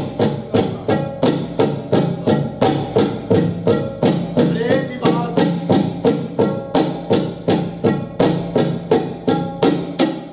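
Tabla played in an even, driving rhythm of about three strokes a second, imitating the chugging of a train engine, with a steady low ringing tone held underneath.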